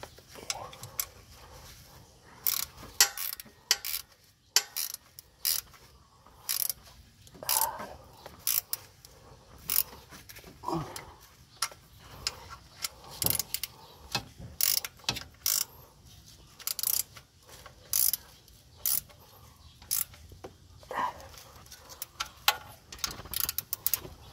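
A 12 mm spanner being worked on the EGR pipe flange bolts, tightening them back: irregular sharp metallic clicks, singly and in short clusters.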